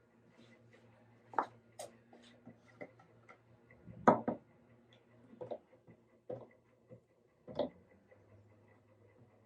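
Scattered clicks and knocks of hand work on the guitar and its clamps, at an uneven pace. The loudest knock comes about four seconds in, with others around one and a half, five and a half and seven and a half seconds.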